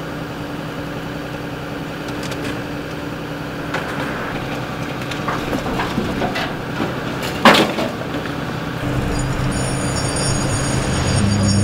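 A vehicle engine idling with a steady low hum, and one sharp metallic clank about seven and a half seconds in. Near the end a louder engine sound comes in, with a thin high whine over it.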